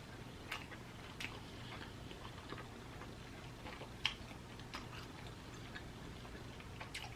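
Faint, irregular small clicks and ticks, about half a dozen, the loudest about four seconds in, over a low steady hum.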